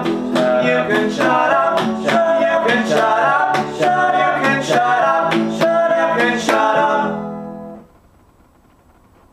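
Acoustic guitar strummed in a steady rhythm, about two strums a second, with chords ringing between strokes. The last chord fades out about eight seconds in, leaving only faint hiss.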